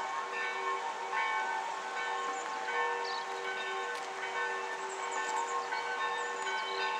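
Church bells pealing, several bells ringing over one another in a continuous steady peal, with a few faint bird chirps.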